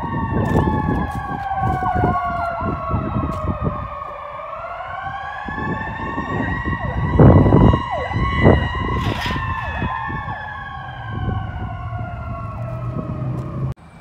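Ambulance siren wailing as the vehicle passes, its pitch falling slowly for about four seconds and then rising again. A short loud burst of noise comes about seven seconds in, and another a second later.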